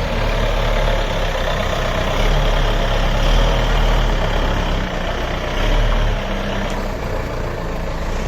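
Bobcat B900 backhoe loader's diesel engine running, a continuous heavy rumble that swells a little in loudness now and then.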